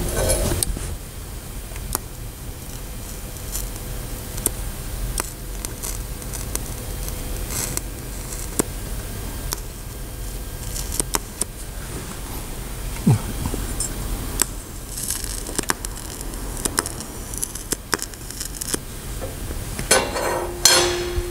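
TIG welding arc hissing steadily as steel is welded to copper, with scattered sharp crackles and a louder cluster of crackling near the end.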